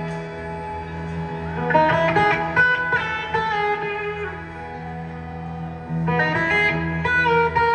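Live electric guitars picking an instrumental melody in clusters of ringing notes, about two seconds in and again about six seconds in, over a steady low drone.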